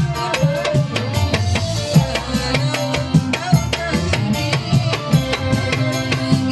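Live music from an electronic keyboard, with a fast hand-drum beat driving it.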